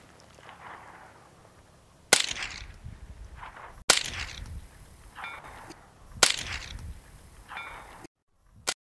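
J.C. Higgins Model 28 semi-automatic .22 rifle fired three times, about two seconds apart; each shot is a sharp crack followed by a trailing echo.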